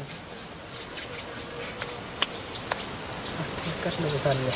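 Insects droning steadily on one high, unbroken pitch, with two faint ticks around the middle.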